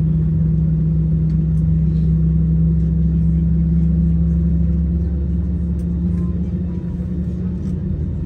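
Steady drone inside an airliner cabin before departure: a strong low hum over a deep rumble from the aircraft's air and onboard systems, easing a little about five seconds in.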